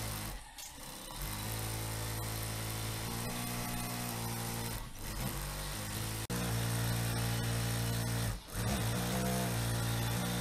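SunStar KM-235AS industrial sewing machine running at speed with a steady motor hum, stitching in long runs and pausing briefly a few times.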